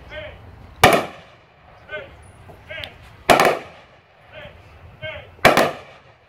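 Three-volley rifle salute of military funeral honors: the firing party fires three volleys, each one sharp crack followed by a short echo, a little over two seconds apart.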